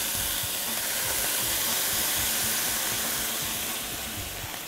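White wine poured into a hot frying pan of sliced vegetables, hissing and sizzling as it hits the hot pan and turns to steam, the hiss easing off near the end.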